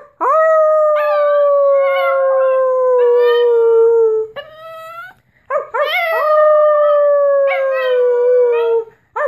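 Small dog howling: two long howls, each about four seconds and sliding slowly down in pitch, with a short break between them and another howl starting at the very end.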